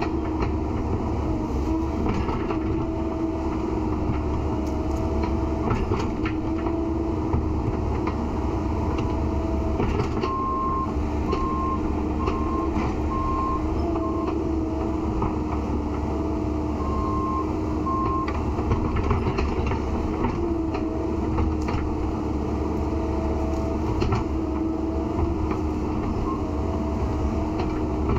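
Heavy-equipment diesel engine running steadily, its pitch rising and falling a little with load. A reversing alarm beeps five times about ten seconds in, then twice more a few seconds later.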